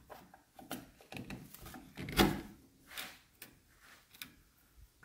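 Flat-blade screwdriver prying and scraping at old, brittle patchwork seam sealer on car body sheet metal: a series of irregular scrapes and cracks as pieces break away, the loudest about two seconds in.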